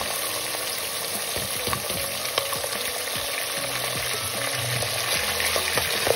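Cubed raw mutton liver sizzling as it fries in hot oil with browned onions, stirred with a steel ladle that gives scattered light clicks against the pot.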